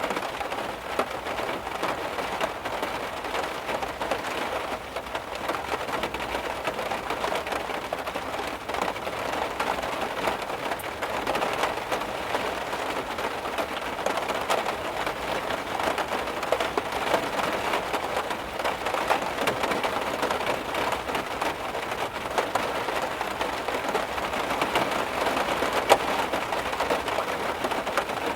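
Heavy rain drumming on a car, a dense steady patter of drops with scattered sharper taps.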